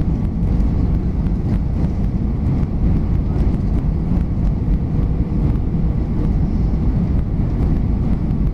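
Steady low rumble of an Airbus A320's engines and rushing air heard inside the passenger cabin on final approach, low over the ground just before landing.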